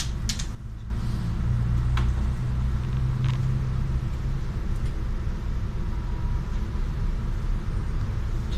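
Solaris city bus's diesel engine idling while the bus stands, a steady low rumble heard from inside the cabin, with a few faint clicks.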